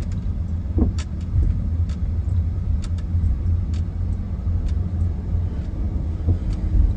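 Car interior noise while driving slowly: a steady low engine and road rumble, with scattered light clicks and rattles.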